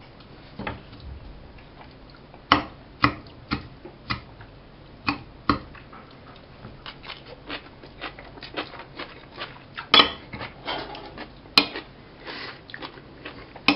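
Metal fork tossing shredded pickled cabbage and carrot on a ceramic plate: irregular clinks and scrapes of the tines against the plate, with a few sharper taps.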